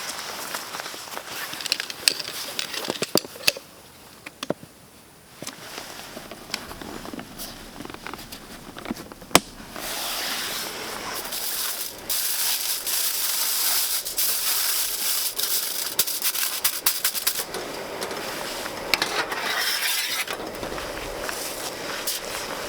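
Camping gear being handled: scattered clicks and knocks, then a steady rustling hiss from about ten seconds in that fades near the end.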